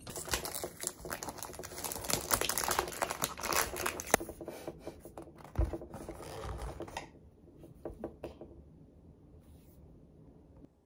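Packaging being handled, crinkling and rustling in dense crackles for about seven seconds, then dropping to a few faint clicks.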